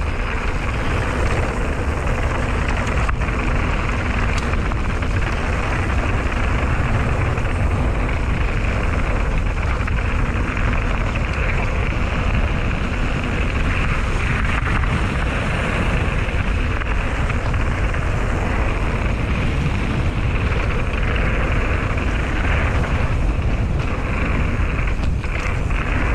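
Mountain bike rolling fast downhill on a dirt and gravel trail: steady tyre rumble and gravel noise, with wind buffeting the microphone.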